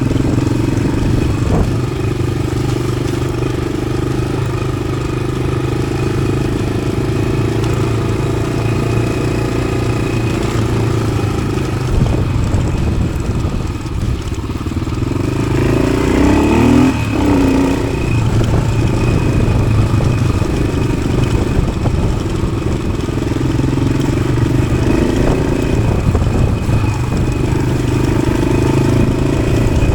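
1993 Yamaha XT600's single-cylinder four-stroke engine, fitted with an aftermarket Arrow exhaust, running steadily under way, with the revs rising and falling briefly a little past halfway through.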